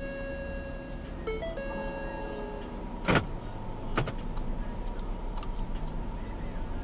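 Electronic tone alert over a low vehicle engine rumble: a held beep-like tone with a quick run of higher and lower notes about a second in, stopping near three seconds. Two sharp clicks follow, about three and four seconds in.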